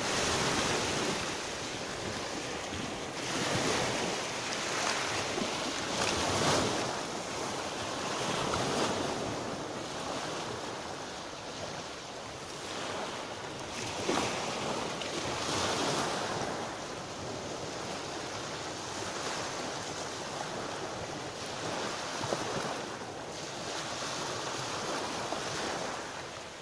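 Black Sea surf washing onto the shore, the wash rising and falling in swells every few seconds.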